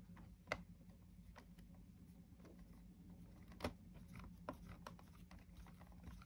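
Quiet, faint clicks and ticks of a small screwdriver turning a tiny screw into a model car's chassis panel, the two sharpest clicks about half a second and about three and a half seconds in, over a low steady hum.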